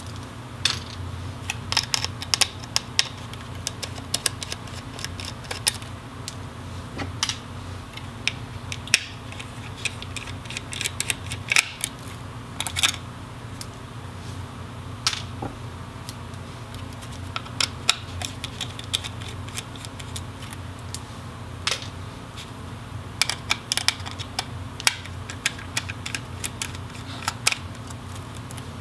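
Irregular small clicks and ticks of a precision screwdriver working tiny Torx T5 screws out of a VR headset's motherboard and the screws being handled, some in quick clusters, over a steady low hum.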